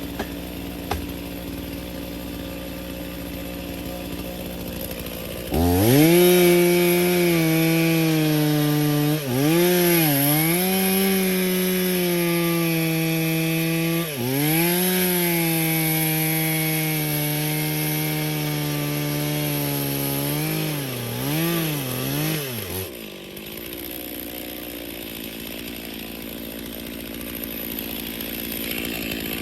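Stihl two-stroke chainsaw idling, then opened to full throttle about five seconds in and cutting wood, its pitch sagging under load a few times, especially near the end of the cut. It drops back to idle shortly before the end.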